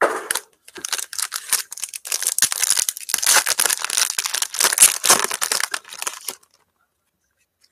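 Wrapping of sports trading card packs being torn open and crinkled: a dense crackle for about six seconds that stops abruptly.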